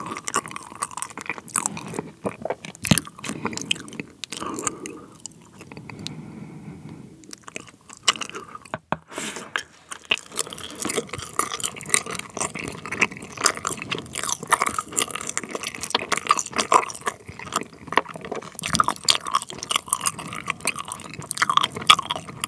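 Close-miked chewing of a Trolli Planet Gummi, a soft, springy gummy candy with a runny jam filling: dense, irregular clicking mouth sounds, quieter for a stretch around six to seven seconds in.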